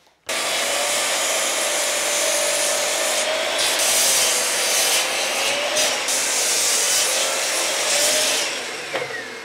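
Bosch sliding mitre saw running and crosscutting hardwood boards (walnut and maple), the blade's whine wavering steadily under the cutting noise. The noise starts suddenly just after the start, then drops away near the end as the blade winds down.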